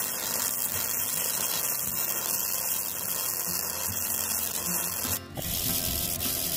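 Gasless flux-core MIG welder arc running steadily as it lays a bead on thick steel, at a raised welding current. It stops abruptly about five seconds in, and quieter handling noise of the welded piece follows.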